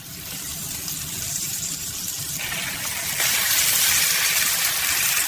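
Butter and a small chicken breast sizzling in a miniature frying pan, a steady hiss that builds and grows louder about three seconds in.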